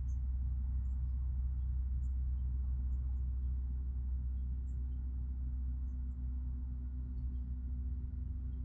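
Steady low hum of a distant motor, with faint short high-pitched chirps over it about once a second.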